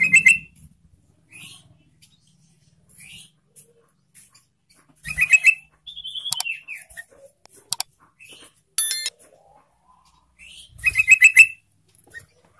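Yellow-vented bulbul (trucukan) singing: three loud bursts of rapid, bubbly chattering notes about five to six seconds apart. A short falling phrase follows the second burst, and fainter single notes come in between.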